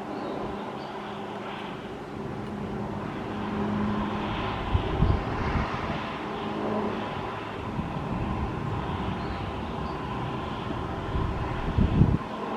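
Cessna 208 Caravan I single-engine turboprop flying low, a steady drone with a held tone under it. A few low thumps about five seconds in and near the end.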